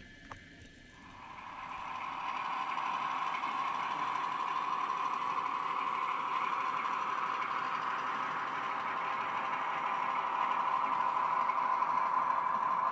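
H0 scale model train running along the track, a steady rattling whir of wheels and motor that swells in over about the first two seconds.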